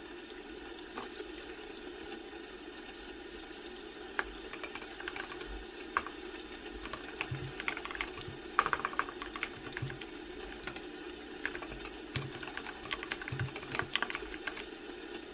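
Typing on a computer keyboard: irregular runs of key clicks begin about four seconds in, with the quickest flurry near the middle. Under the typing is a steady low rushing noise.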